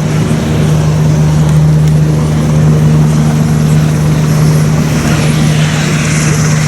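Royal Navy Westland Sea King helicopter running close by: a loud, steady drone with a constant low hum.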